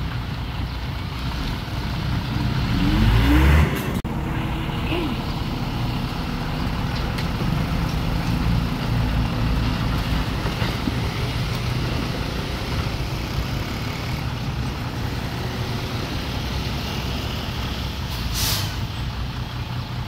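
Heavy diesel earthmoving machinery running steadily, the engine revving up with a rising pitch about three seconds in before dropping back suddenly. A short hiss of air comes near the end.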